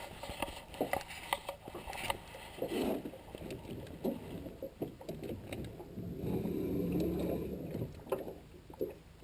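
Light knocks and clicks of handling in a small fishing boat on the water as a baited line is let down. A low hum rises for a second or two about six seconds in.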